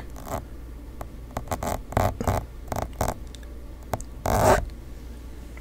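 Close-miked hand sounds: fingertips rubbing and pinching together in a string of short, scratchy rustles, with a longer, louder rub about four seconds in.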